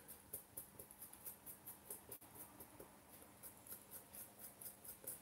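Faint, irregular small ticks and scratches of a thin metal tool tucking cotton wick into the deck of a Dejavu Mark #1 rebuildable dripping atomizer.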